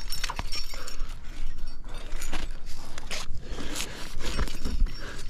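A rock climber moving up a crack climb: irregular scraping and rustling of hands, shoes and climbing gear against the rock, with a few light clinks.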